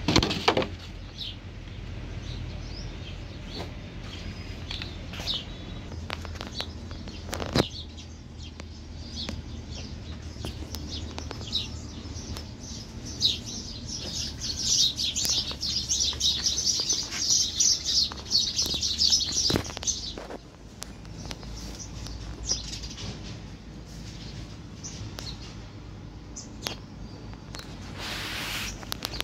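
Small birds chirping, densely for several seconds around the middle, over a low steady hum, with scattered short clicks and knocks.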